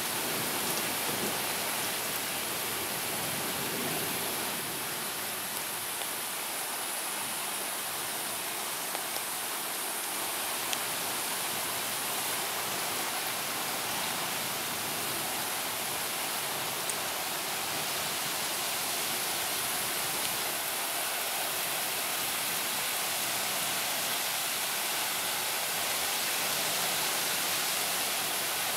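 Heavy rain falling steadily in a thunderstorm downpour, an even, unbroken hiss with a couple of faint sharp ticks.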